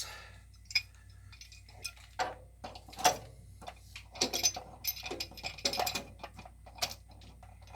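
Irregular metallic clicks and clinks of wrenches being handled and set on a brass SharkBite push-fit fitting, ahead of tightening it about three-quarters of a turn past hand tight.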